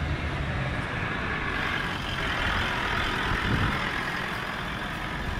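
Toyota LandCruiser 79 series ute driving past on a sandy dirt track: a steady engine rumble with tyre noise that swells as it passes, about two to three seconds in.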